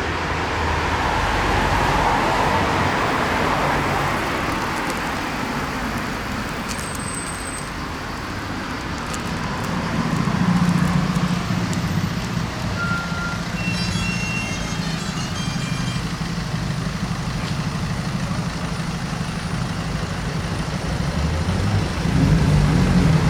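A motor vehicle engine running steadily, getting louder about ten seconds in and again near the end, with a few short electronic beeps a little past halfway.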